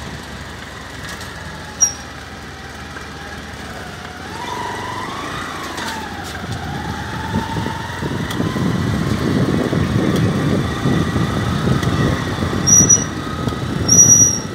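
Ride noise from a moving vehicle: engine and road rumble that grow much louder about eight seconds in as it picks up speed. There is one short high-pitched beep about two seconds in and two more near the end.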